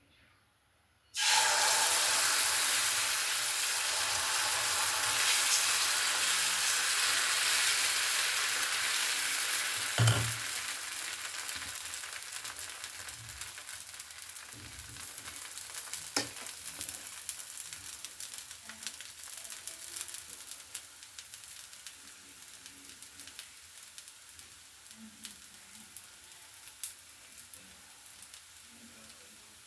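Food sizzling as it goes into a hot pan about a second in: a loud frying hiss that slowly dies down to a quieter sizzle with scattered crackles and pops. There is a single knock about ten seconds in.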